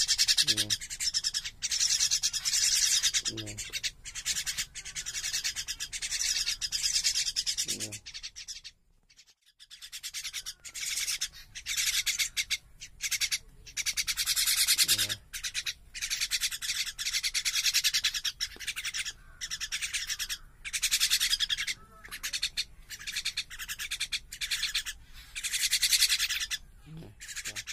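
Common mynas giving harsh, raspy begging calls in rapid repeated bursts as they are hand-fed, with a short pause about nine seconds in.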